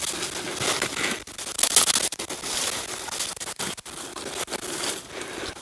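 Irregular rustling and crackling of clothing and gear rubbing close to the microphone as an airsoft player moves, with crunching steps mixed in.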